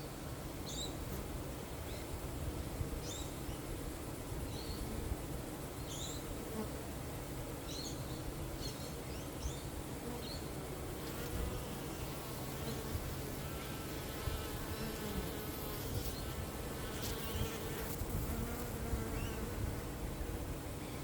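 Honeybees buzzing in a steady, continuous hum, with short high chirps scattered through the first half.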